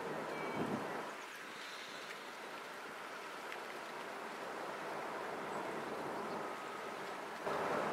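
Steady outdoor hiss of wind and river water, with a brief knock about half a second in and the noise getting louder near the end.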